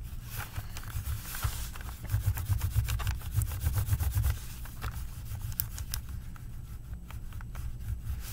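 Gray crayon rubbed on its side across paper lying over crinkled scrap paper: a continuous scratchy rubbing made of many quick strokes, with a low rumble underneath that grows heavier in the middle.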